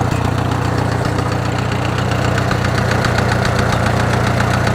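Farmall H tractor's four-cylinder gasoline engine running steadily with a regular, pretty noticeable knock. The owner is unsure whether it is a tappet or worn camshaft lobe, or something deeper such as a bearing.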